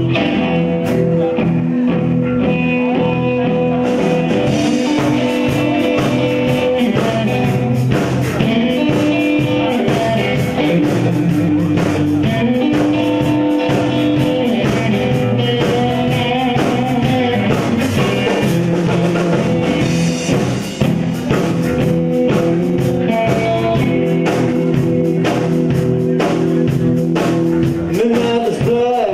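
Live rock band of electric guitar, electric bass and drum kit playing an instrumental passage at a steady tempo, with cymbals coming in about four seconds in.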